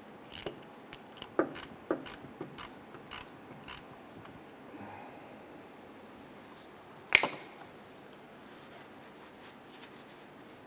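About ten irregular clicks from a hand tool, typical of a ratchet, as a new hose clamp on the radiator hose is tightened, followed about seven seconds in by one louder sharp clank.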